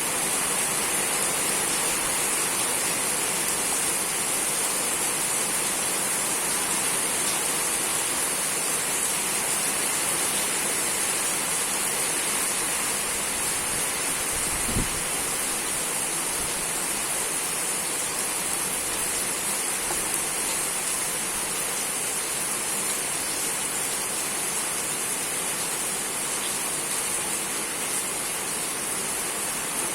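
Heavy rain falling steadily, a dense even hiss, with one brief low thump about halfway through.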